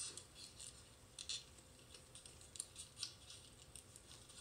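Faint rustling and crinkling of a square of origami paper being folded and creased by hand, in short scattered crackles.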